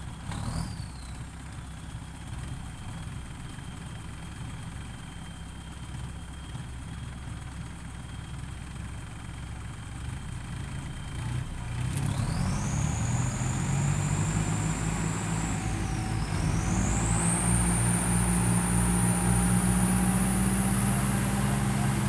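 Diesel farm tractors idling with a thin steady whine. About halfway in, an engine revs up hard under load as one tractor pulls the other, stuck in the mud, free on a chain. Its turbo whistle rises steeply, dips briefly, then climbs higher and holds.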